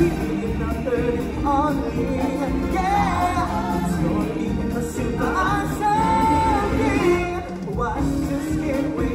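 Ensemble singing, several voices in choir style, over a full band accompaniment in a live stage musical performance.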